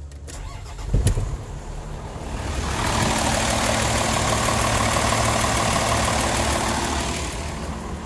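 A UD 2000 truck's diesel engine turning over and running after a sharp click about a second in, as the starter finally gets its ground through a jumper wire; the relay's own ground circuit is broken. The engine sound is steady and eases off near the end.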